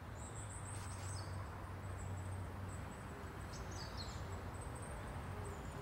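Outdoor nature ambience: high, thin bird chirps now and then over a steady low background noise.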